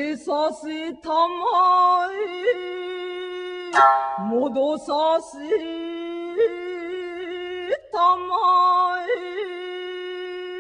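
Traditional Japanese chanted singing: long held, wavering notes on one steady pitch, entered with ornamental upward slides, with a sharp plucked-string strike about four seconds in and another just before eight seconds.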